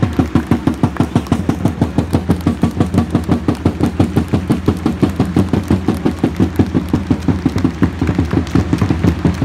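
Football supporters' drums beating a fast, steady rhythm of about five beats a second, with a steady low drone underneath.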